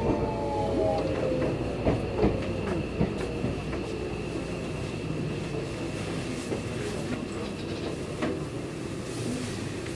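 Seibu Railway electric commuter train running. A motor whine slides down in pitch near the start, a steady high whine continues throughout, and the wheels clack over rail joints a few times around two to three seconds in.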